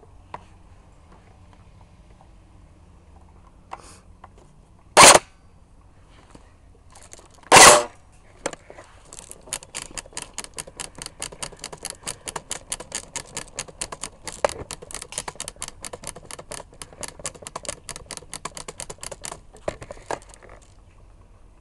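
Airsoft guns firing: two loud short bursts about five and seven and a half seconds in, then a long run of quieter rapid shots ticking at an even pace for about ten seconds.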